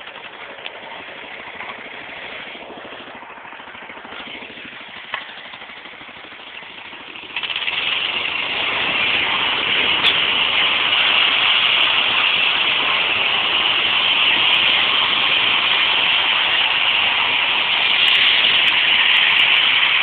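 Garden tractor engine running hard under load as it drags a weight sled in a tractor pull. It turns sharply louder about seven seconds in and stays loud.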